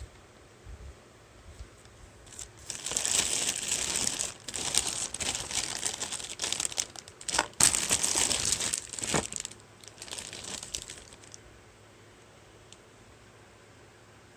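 Plastic packaging crinkling and rustling as it is handled, in irregular bursts from about two seconds in until about eleven seconds in.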